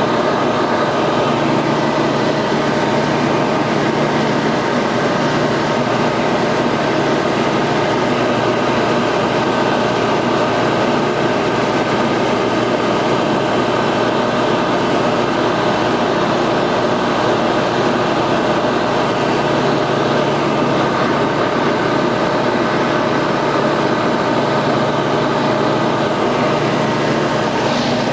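Ultralight aircraft engine and propeller running steadily in cruise, heard from inside the cockpit.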